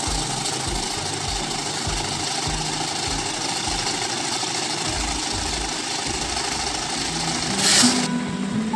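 A machine engine running, with irregular low thumps about two a second over a steady hum, and a short loud hiss near the end.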